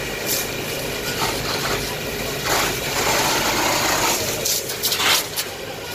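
A fire tender's engine running steadily, with a louder rush of noise for about a second and a half in the middle and a few short, sharp noises near the end.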